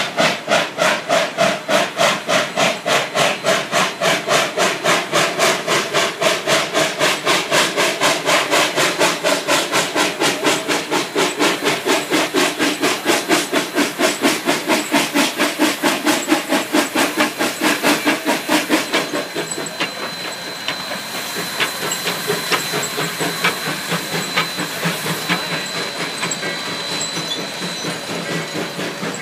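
The 1881 Baldwin 2-8-0 Consolidation steam locomotive D&RGW No. 346 working hard under way, its exhaust chuffing in a steady, rapid beat. About two-thirds of the way through the chuffing stops, leaving a steady steam hiss with a thin high tone and the clicking of wheels over rail joints.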